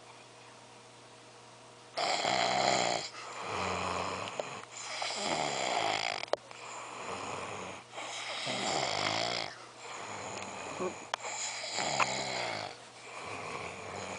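A drunk person snoring heavily in deep sleep: rattling, rasping snores about every one and a half seconds, starting about two seconds in after a quiet moment.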